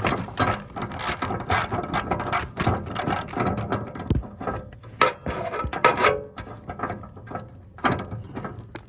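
Hand socket ratchet clicking in quick, uneven runs as it is swung back and forth, tightening a mower blade bolt.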